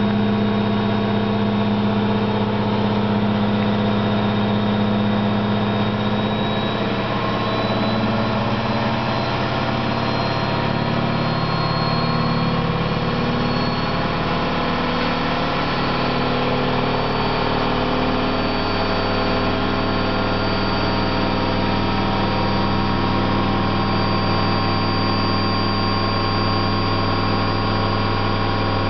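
Candy GO4 127 DF washing machine spinning, a steady loud drone with a faint high whine above it. The noise comes from the drum bearings, which the owner calls loud rather than really bad.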